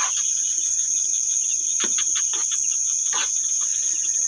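Night insect chorus: a steady, high-pitched shrill trill, with a few short sharp clicks in between.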